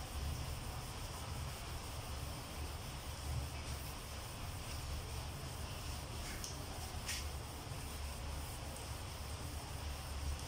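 Steady low room hum with faint hiss, broken by two or three faint short scratches or clicks, the clearest about seven seconds in.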